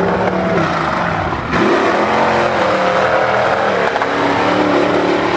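Mega mud truck's engine revving hard, its pitch rising and falling.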